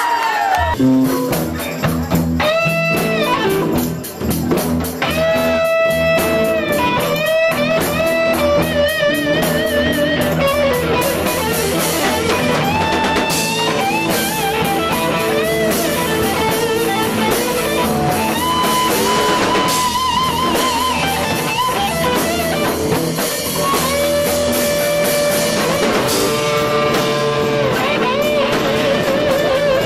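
Rock band playing: an electric guitar plays lead lines of sliding, wavering notes over a steady drum kit beat, with a short drop in loudness about four seconds in.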